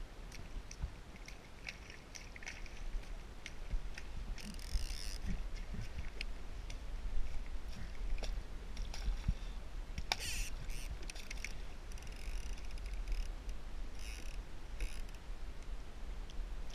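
Low rumble of wind on the microphone, with scattered small clicks and several short rasps from a fishing rod, reel and line being handled on a kayak.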